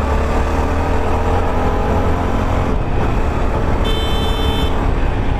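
Motorcycle engine running while riding on the road, with heavy low wind rumble. A short, high-pitched horn-like beep sounds about four seconds in.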